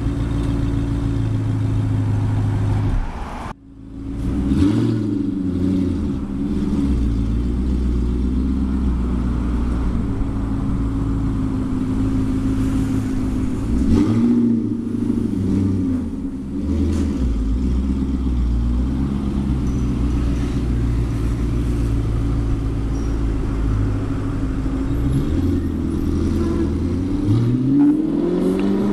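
Audi R8 V8 running through an Fi Exhaust valved catback system: a steady idle with a few short throttle blips, then engine revs climbing steadily near the end.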